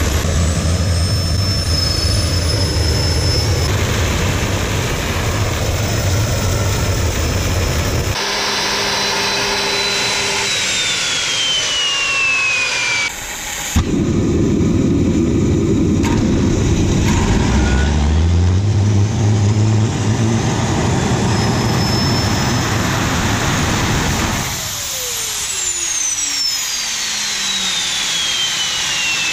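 TS-20B aircraft turbine starter, a small gas turbine, running with a steady loud roar and whine. Around eight seconds in the roar drops away and a whine falls in pitch. Near fourteen seconds there is a sharp click and the turbine lights again with a rush, its pitch rising as it spools up. About twenty-five seconds in it shuts off, and its whine slowly falls away as the rotor runs down.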